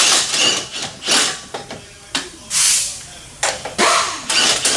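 Several short bursts of compressed-air hissing from a pneumatic shop tool, each lasting up to about half a second with brief pauses between them, as suspension bolts are worked on for a camber adjustment.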